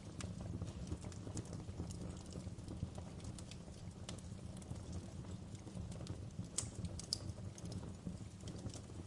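Fire crackling: a steady low roar of flames with irregular sharp pops and snaps, two of them louder about two-thirds of the way through.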